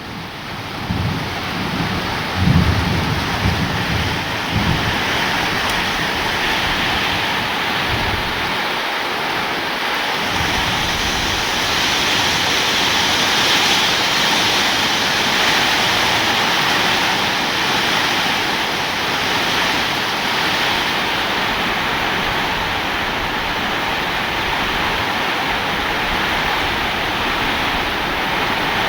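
Steady heavy rain, with low rumbles of thunder in the first few seconds.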